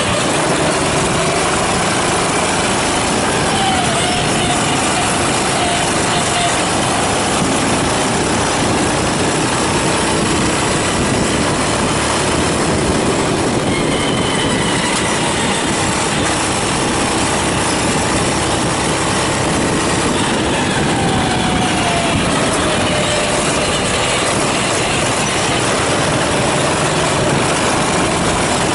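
Go-kart engine running on track, loud and steady, its pitch sliding down a few times over a dense noise.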